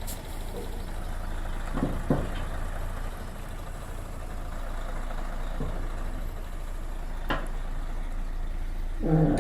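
Engine of a compact construction machine, either the mini excavator or the site dumper, running steadily at a low hum, with a couple of short knocks.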